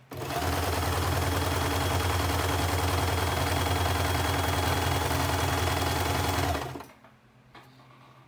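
Sewing machine running steadily at speed, sewing a three-step zigzag stitch over elastic, then stopping after about seven seconds.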